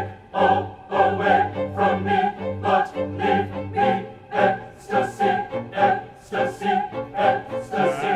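Opera music: singers with instrumental accompaniment in a rhythmic run of short, accented chords, about two to three a second.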